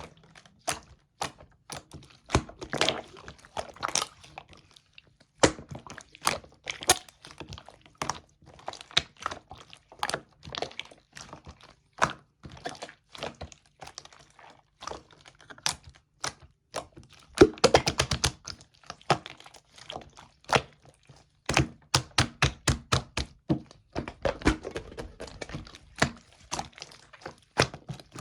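Slime being squished and poked by hand, giving a long run of sharp clicks and pops as air pockets burst, with a quick flurry of clicks about three quarters of the way in.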